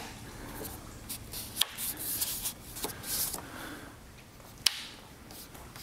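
Handling noise from a side cover piece being pressed onto a rear-wing riser by hand: light rubbing and rustling with a couple of sharp clicks, the clearest one near the end.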